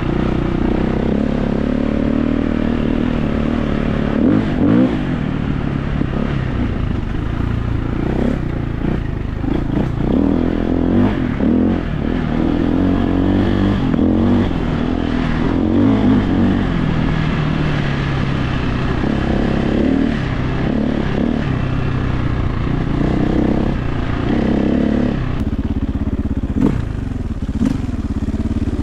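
Freshly rebuilt 2001 KTM 520 EXC single-cylinder four-stroke engine running, its pitch rising and falling repeatedly as it is revved, with some mechanical clatter.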